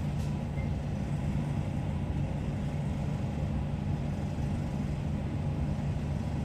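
Steady low background hum with an even hiss above it, unchanging throughout and with no distinct knocks or clinks.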